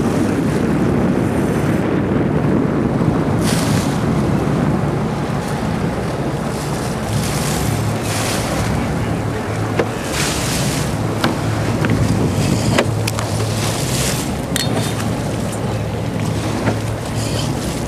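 Fishing boat's engine running steadily as a low hum, with water washing against the hull and wind gusting on the microphone in bursts of hiss every few seconds.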